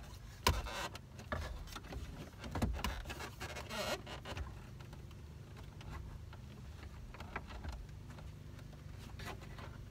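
Handling noise from a car stereo head unit and its wiring being pushed into the dash: several sharp plastic clicks and knocks and a rustle of wires in the first few seconds, a couple more clicks near the end, over a low steady hum.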